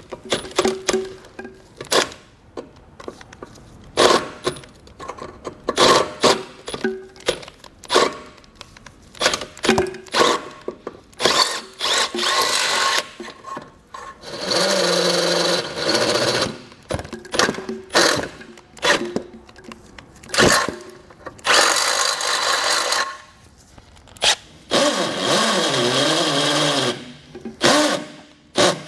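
Milwaukee FUEL cordless drill boring out factory holes through a car's frame rail, the bit cutting through the sheet steel. It runs in many short trigger bursts, with three longer runs of a couple of seconds each, one about halfway through and two near the end.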